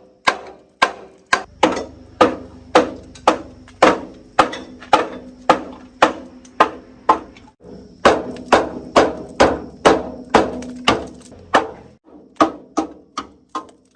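Hammer blows on metal, about two a second in an even rhythm, each strike ringing briefly, with short pauses a little past halfway and near the end.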